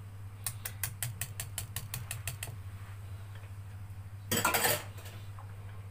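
A quick run of about a dozen mechanical clicks, roughly five a second for two seconds, then a short, louder rush of noise about four seconds in, over a steady low hum.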